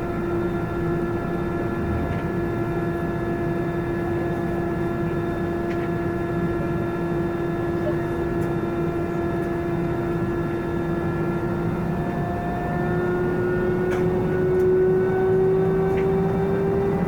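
Airbus A320 jet engines running with a steady whine over a rumble, rising in pitch and getting a little louder about three-quarters of the way through as the engines spool up.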